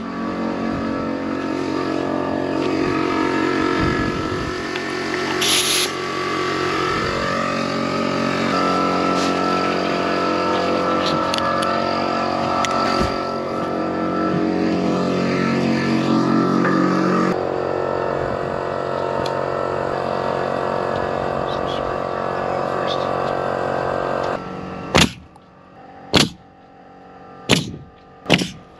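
A loud steady drone of many held tones, shifting abruptly a few times and cutting off about 24 seconds in. Then a pneumatic nail gun fires four times, about a second apart, driving nails through OSB sheathing into the wall framing.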